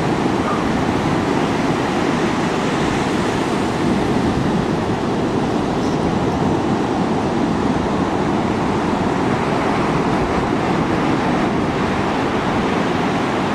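Steady rushing noise of ocean surf and wind at the beach, with no breaks or separate events.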